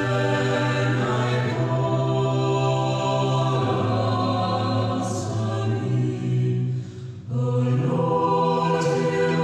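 A choir singing slowly in long held chords, with a brief pause between phrases about seven seconds in.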